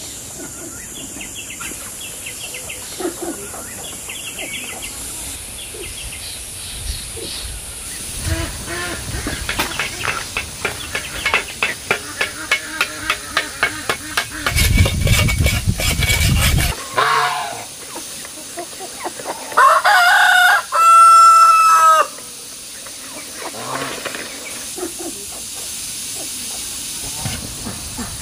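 Chickens: a rooster crows once, loudly, about twenty seconds in, with hen clucking around it. Before the crow come a run of quick regular pulses, about three a second, and a brief loud low rumble.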